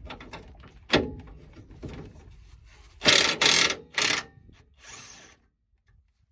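Hand-tool work on a crossmember bolt under the truck: a sharp metal clank about a second in, then two loud rattling bursts around three and four seconds in and a fainter one near five seconds.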